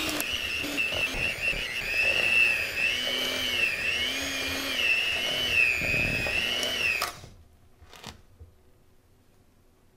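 Electric hand mixer beating a very thick cookie dough, its motor giving a high whine that wavers up and down in pitch as the beaters labour, until it switches off about seven seconds in. A single light knock follows shortly after.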